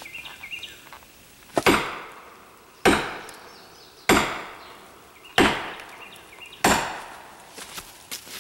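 Sledgehammer driving a steel felling wedge into the back cut of a rotten tree: five sharp strikes about a second and a quarter apart, each ringing briefly.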